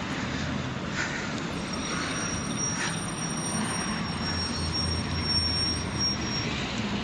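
Street traffic noise: a steady rumble of road vehicles, with a thin high steady whine in the middle that fades out near the end.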